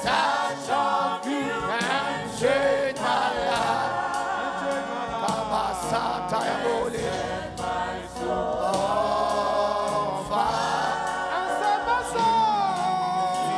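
A choir singing a slow gospel worship song over instrumental backing, with long held sung notes.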